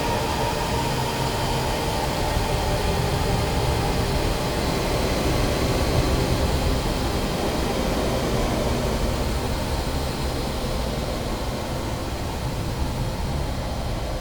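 Dense, steady wall of noise from a noise-music track, with a rumbling low end and faint held tones under it; the highest hiss thins out over the last few seconds.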